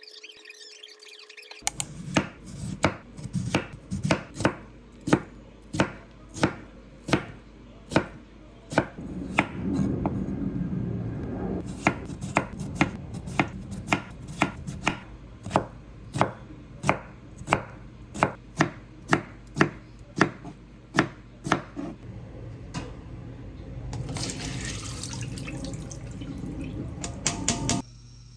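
Kitchen knife chopping food on a cutting board in steady, even strokes, about one and a half a second, with a quick flurry of chops near the end.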